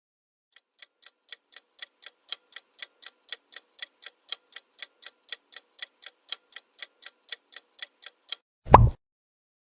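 Clock-style countdown timer ticking, about four sharp ticks a second, fading in at the start and growing louder. Near the end comes one loud, short hit.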